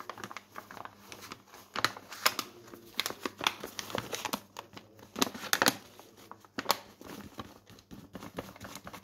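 A paper flour bag crinkling and rustling in irregular crackles while flour is poured from it into a plastic bowl on a kitchen scale.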